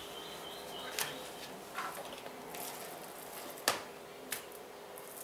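A spoon scooping and spreading minced meat filling onto a flour tortilla on a plastic cutting board gives a few brief light taps and clicks, four in all, the sharpest a little past halfway, over a faint steady hum.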